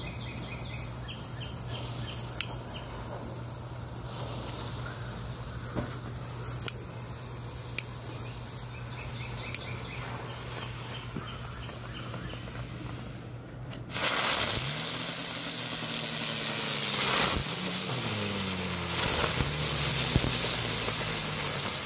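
Lit smoke bombs and fuses hissing softly with small crackles, then about two-thirds of the way through a sudden loud hissing as Legend Ground Bloom flower fireworks spin and spray sparks, with wavering whines rising and falling in pitch under the hiss.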